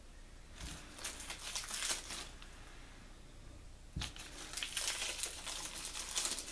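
Plastic string cheese wrappers crinkling as they are handled and pulled open by hand. The crinkling comes in two bursts of a couple of seconds each, and each begins with a light knock on the counter.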